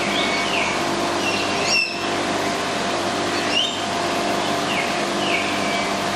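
Several small birds chirping: repeated short chirps that slide downward in pitch, over a steady background hum. Two brief sharper sounds stand out, about two seconds and three and a half seconds in.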